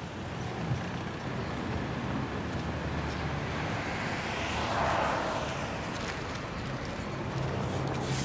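Street traffic noise with a steady low hum, and a car passing by about five seconds in, swelling and fading.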